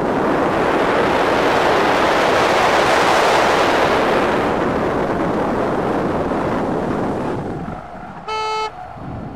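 Wind and road noise from a Tesla Roadster driven hard through a cone course, heard from inside the car; it swells to a peak about three seconds in and dies away near the end. Then a single short horn-like toot, under half a second long.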